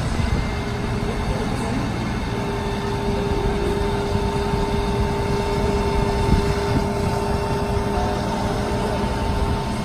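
Magirus turntable ladder running on the fire engine's engine-driven hydraulics as the cage is raised: a steady mechanical run with an even whine that sets in about two seconds in and holds.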